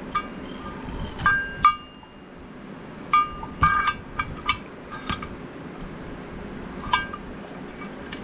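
Steel vise parts clinking as they are handled and fitted together: about a dozen light metallic clinks, several leaving a short ring, bunched near the start and again a few seconds in.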